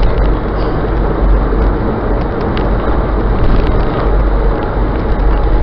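Steady road and wind noise of a car driving at highway speed, heard inside the cabin through a dashcam's microphone, with a deep rumble and a few faint ticks.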